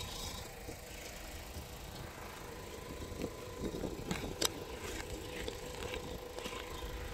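Jumper-lead clamps clicking and rattling as they are fitted to a car battery, with the handheld camera rubbing against a shirt, over a faint steady hum. One sharper click comes about four and a half seconds in.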